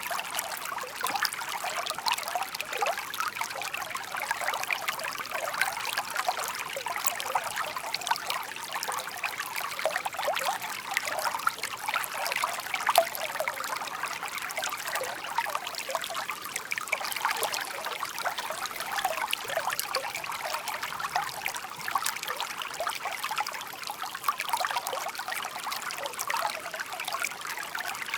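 Shallow stream babbling and trickling steadily over stones, a busy patter of small splashes with little low rumble.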